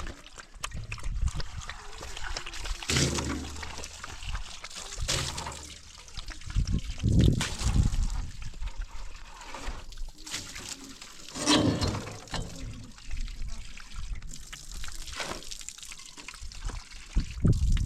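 Water trickling, with irregular louder swells of noise.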